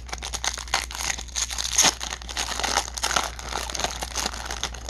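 Hands tearing open and crinkling the plastic wrapper of a baseball card pack: a dense, continuous run of crackles and rustles.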